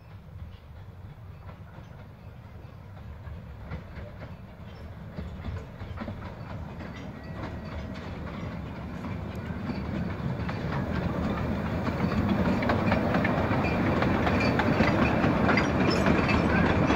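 A 2 ft gauge steam-hauled train approaching, growing steadily louder, with a rumble and the rapid clicking of its wheels over the rail joints.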